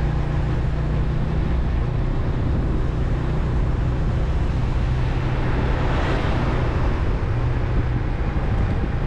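Motorbike engine running steadily at cruising speed, with wind rushing over the microphone. There is a brief swell of hiss about six seconds in.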